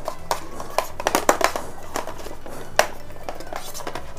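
Handling noise from unboxing a Dizo Wireless neckband: a scatter of sharp clicks and light knocks as the neckband and its moulded paper tray are handled and the neckband is pulled free.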